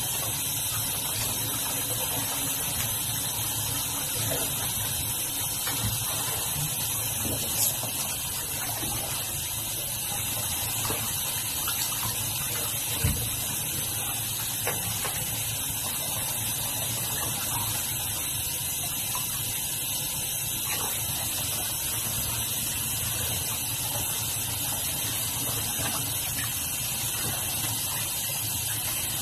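Water pouring steadily from a bath mixer tap into a filling bathtub, with a few brief knocks.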